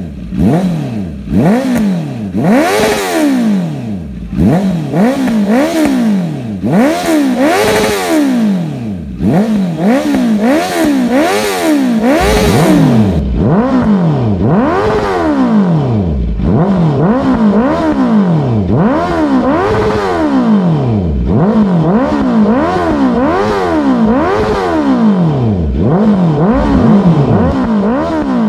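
2019 Honda CB650R's inline-four engine revved over and over in neutral through a full aftermarket exhaust with a Black Knight muffler, each throttle blip rising and falling back in about a second.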